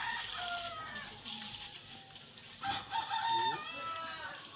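Rooster crowing twice: one crow at the start and a second, louder crow about two and a half seconds in.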